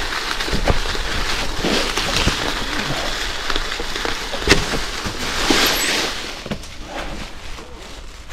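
Gravel bike's 43 mm Panaracer GravelKing tyres crunching and rattling over a rough, stony trail, with sharp knocks as the bike jolts over stones, the loudest about four and a half seconds in. The noise eases a little about six and a half seconds in.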